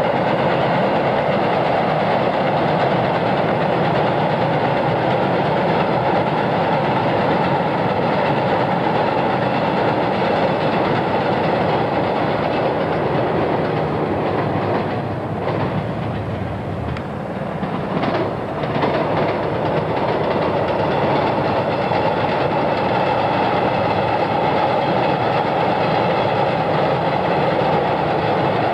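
Long Island Rail Road electric multiple-unit trains running across a steel trestle viaduct, a steady, loud rolling noise. It eases for a few seconds about halfway through, then builds again as another train crosses.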